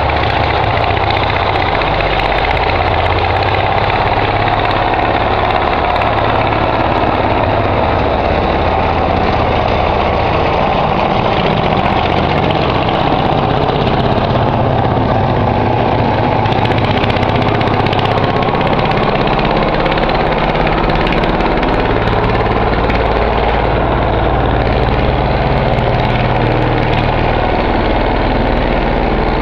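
Engine of a Nimbus Junior 2 motorised dumper running steadily, its level hardly changing.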